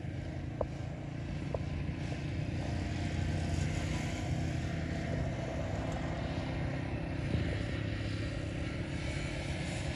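Steady low drone of a distant engine running, with faint clicks in the first two seconds.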